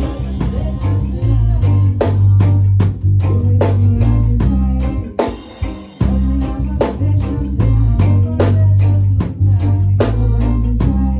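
Live band music: a drum kit keeping a steady beat under a bass line and guitar, with no clear vocal.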